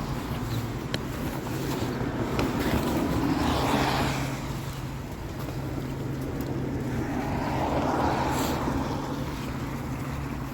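A vehicle's engine running with a steady low hum, joined twice by swells of rushing noise, once around four seconds in and again around eight seconds in.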